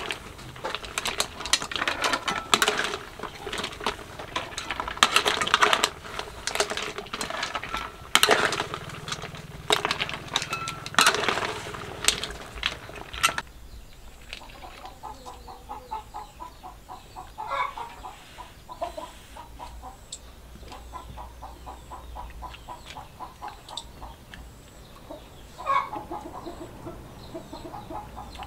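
Utensils and dishes clinking and scraping in quick succession, then about halfway through this stops abruptly and chickens cluck in short repeated calls.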